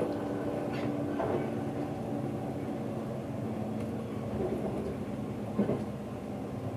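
Cabin sound of a DB Class 643 Talent diesel railcar running on the track: a steady rumble with the diesel engine's hum, its note dropping a little about a second in, and a few short knocks, the loudest about five and a half seconds in.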